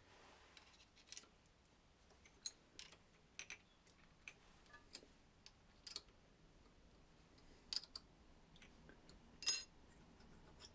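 Scattered light metallic clicks and taps of an Allen key and steel clamp blocks being handled on a milling machine table, with one louder ringing clink of steel on steel near the end.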